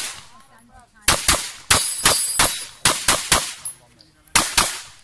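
About ten 9 mm shots from a Glock 17 in a Hera Arms Triarii carbine chassis, fired in quick pairs as the shooter engages targets, each crack followed by a short echo. The last pair comes after a short pause, near the end.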